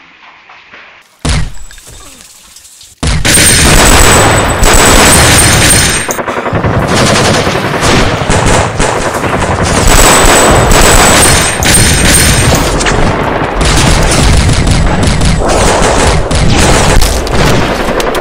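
Film battle gunfire: a single loud shot about a second in, then from about three seconds a loud, dense, continuous barrage of rapid rifle and automatic fire.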